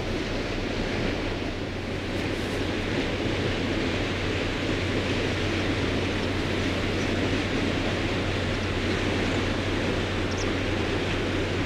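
Container ship under way in a canal: a steady low engine hum beneath an even rushing noise.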